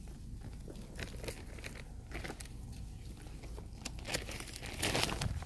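Dry leaf litter rustling and crackling in scattered small clicks, with a louder rustle near the end.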